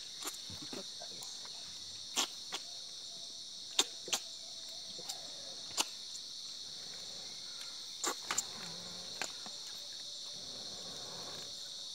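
Steady, high-pitched chorus of insects, likely crickets, with a handful of short, sharp clicks or knocks scattered through it.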